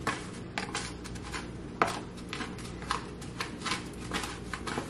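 Chicken pieces being pressed and turned by hand in breadcrumbs in a baking tray: soft crunching and rustling, with a scatter of light ticks and one sharper click about two seconds in.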